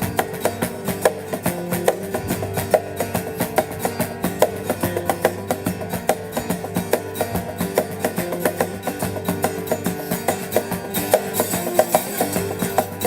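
Instrumental rock passage from a guitar-and-percussion duo: guitar riffing over a steady, driving beat of percussion hits.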